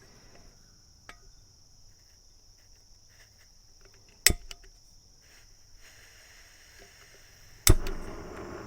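Two sharp clicks about three and a half seconds apart as the lidded water vessel for coffee is handled and the heat is switched on. The second click is followed at once by a steady rushing hiss. A constant high insect trill runs underneath.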